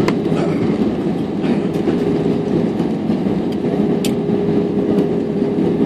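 Cabin noise of an IndiGo Airbus A320 rolling on the runway after landing: a steady engine and rolling hum with a faint held tone, and a few light clicks and rattles, one clearer about four seconds in.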